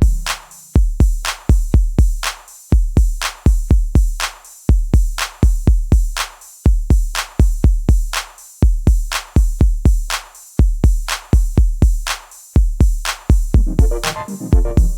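Electronic backing music: a drum-machine beat of deep kick drums and sharp hits in a steady pattern, with the melody dropping out and coming back in near the end.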